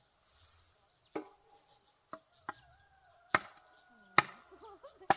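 A metal hoe chopping into the ground to dig planting trenches: about six sharp, irregular blows, the last three the loudest, several leaving a brief metallic ring.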